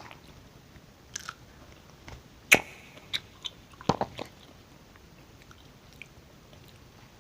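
Close-miked mouth sounds of chewing a strawberry dipped in yogurt: a handful of short wet clicks and smacks over the first four seconds or so, the loudest about two and a half seconds in.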